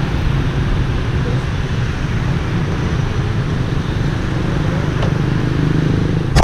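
Steady rush of road and wind noise from a moving car, heard on a camera held out of the car's window in city traffic. A sharp click comes at the very end, after which the noise drops.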